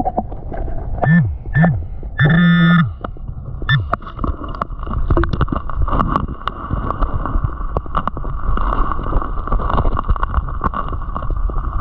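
Muffled underwater sound of a hand digging in creek gravel: stones clicking and scraping over a low rumble. A few short muffled vocal sounds come in the first three seconds, and a steady high hum runs through the later part.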